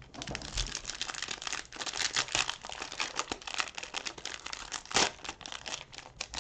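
Plastic cello wrapper of a 2020-21 Prizm NBA card pack crinkling and crackling as it is torn open by hand, with a sharper, louder crackle about five seconds in.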